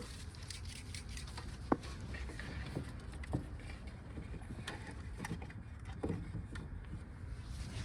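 Faint, scattered light clicks and taps over a low steady rumble, with a few sharper ticks.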